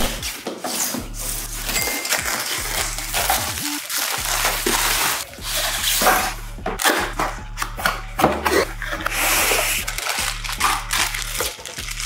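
Close-miked handling of a cardboard cooler box: the box is tapped, opened and slid across a wooden table in a string of irregular knocks and scrapes. Plastic-bagged fans crinkle near the end as they are lifted out. A low hum sits underneath.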